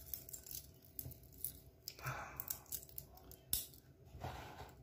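Faint metallic clicks and clinks of a Seiko SKX007 diver's watch and its steel bracelet being handled and fastened around a wrist, with a sharper click about three and a half seconds in and some soft rustling.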